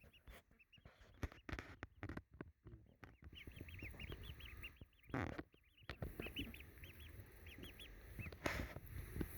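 Ducklings peeping: runs of short, high cheeps that rise and fall, several a second, from about three seconds in. A few knocks and rustles come in the first seconds, and two louder, harsher calls come about five and eight and a half seconds in.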